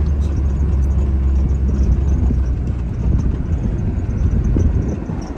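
Loud, steady low rumble that eases off slightly near the end.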